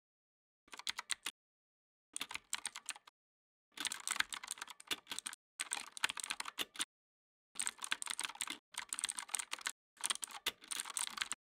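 Keyboard typing: seven runs of rapid key clicks, each about a second long, with silence between them.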